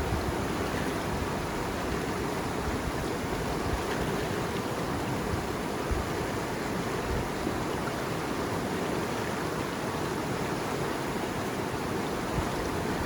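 Flowing water: a steady, even rushing noise that holds constant throughout.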